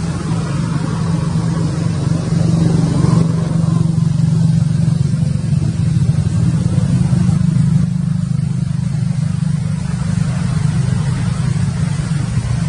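A steady, loud low engine rumble, like a motor vehicle running close by, swelling slightly about two seconds in.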